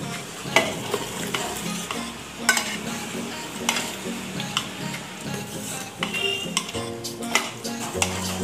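Metal ladle stirring a simmering mutton-and-masala mixture in an aluminium pressure cooker. The ladle scrapes and knocks against the pot several times while the liquid sizzles and bubbles.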